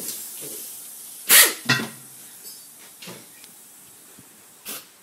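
A loud, sharp knock about a second and a half in, then a few short aerosol hisses, as ether is sprayed inside the rim of a race slick before the bead is lit and seated.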